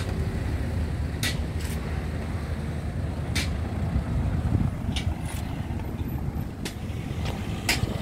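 Steady low rumble of city street traffic, with a few short sharp clicks scattered through it.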